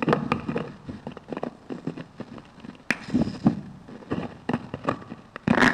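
Scattered clicks, knocks and rustles of a headset microphone being handled and fitted onto a speaker's head, with a louder scraping rub shortly before the end.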